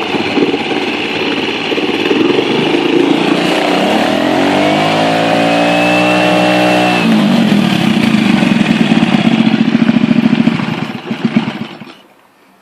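Honda 2 hp four-stroke outboard's single-cylinder engine running, revved up for about three seconds a few seconds in, then dropping back to idle and shutting off near the end.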